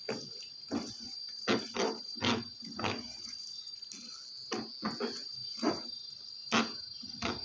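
Plastic spatula stirring chicken pieces in thick buttermilk sauce in a non-stick pan: irregular scrapes and knocks against the pan, about a dozen, over a faint steady high-pitched tone.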